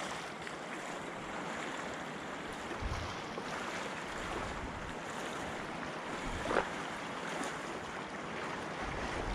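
Steady wash of wind and choppy lake water, with one short, louder sound about six and a half seconds in.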